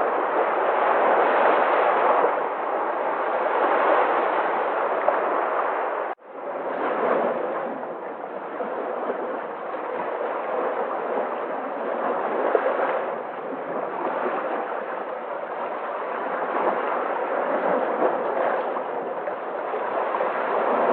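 Sea waves washing on the shore in a steady, swelling rush, with a brief sudden dropout about six seconds in.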